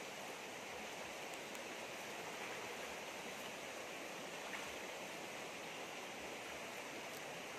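Shallow rocky stream flowing over stones: a steady, even rush of water.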